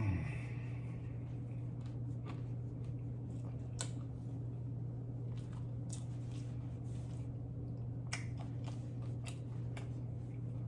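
Quiet chewing and eating sounds: scattered small clicks and mouth smacks over a steady low hum.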